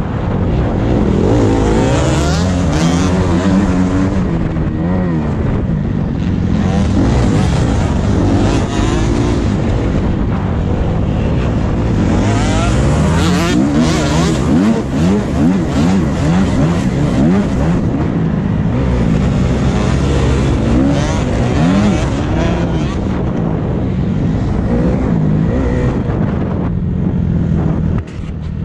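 Motocross motorcycle engine revving up and down repeatedly as the bike is ridden hard around a dirt track.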